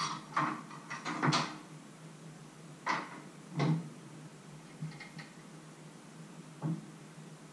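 Kitchenware being handled on a wooden worktop and cutting board: a few short knocks and clatters, the sharpest in the first second and a half, over a low steady hum.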